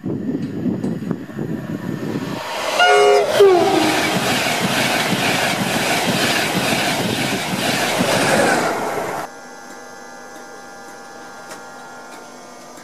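InterCity 225 (Class 91 electric locomotive with Mark IV coaches) sounds its horn as it nears, the tone sliding down in pitch, then passes at speed with a loud rush of wheels and air for about six seconds. This cuts off suddenly to a much quieter steady hum with faint whining tones from a standing InterCity 225.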